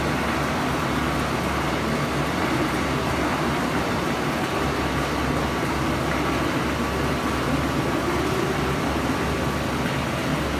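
Plastic recycling machinery running steadily with a constant motor hum and a broad mechanical drone, while plastic granules spill from its outlet.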